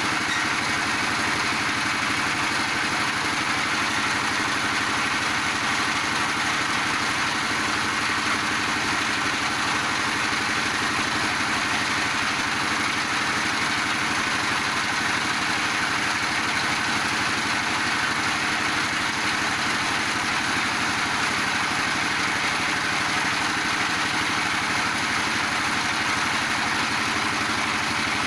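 Animal-feed pellet machine running steadily, with an even mechanical drone that does not change.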